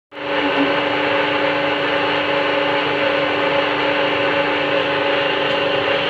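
Hydraulic cylinder honing and testing machine running steadily, its motor giving a constant hum with a haze of mechanical noise.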